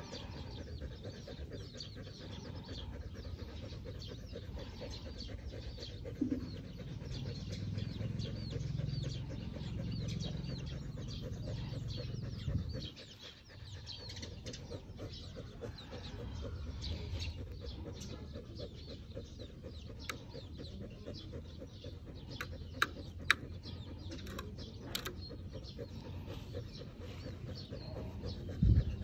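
Chickens clucking, over a steady low rumble, with a few sharp clicks in the second half.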